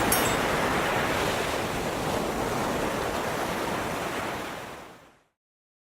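Ocean waves washing on a shore, a steady rushing surf with no music over it, fading out near the end.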